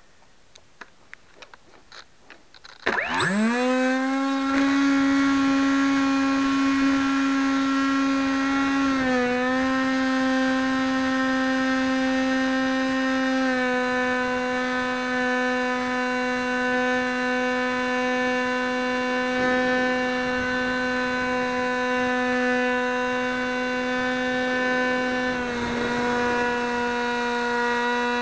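Faint clicks of handling, then about three seconds in a small electric drone's motors and propellers spin up sharply into a steady whine, stepping a little in pitch a few times as the throttle changes.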